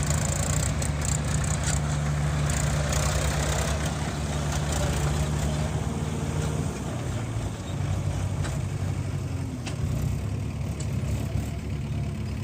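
Heavy diesel engine running steadily, with a few light knocks, easing a little about seven seconds in.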